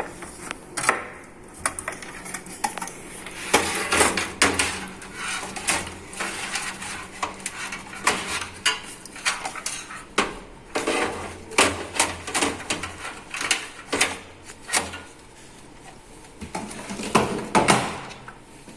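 Irregular metallic clinks, clacks and knocks of a desktop computer power supply unit being handled and fitted into a metal PC case.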